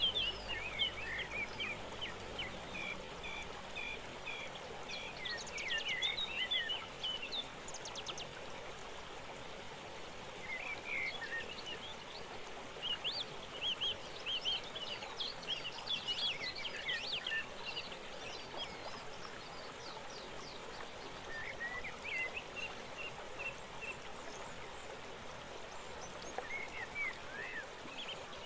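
Steady rush of water from a forest waterfall or stream, with birds chirping in short scattered bouts several times over it.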